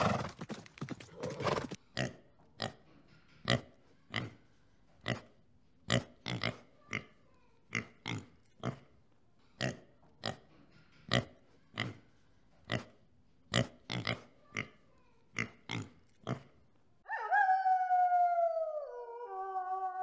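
Warthog grunting in a long run of short, sharp grunts, about two a second. About seventeen seconds in, a wolf howls: one long call that falls in pitch and then holds.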